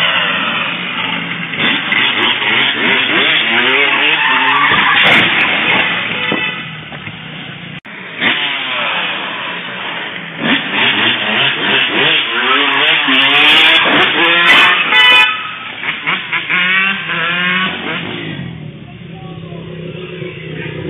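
Dirt bike and car engines revving hard, their pitch climbing and dropping again and again, with sharp crashing impacts near the loudest point about fourteen seconds in. After that, an engine runs more quietly and steadily.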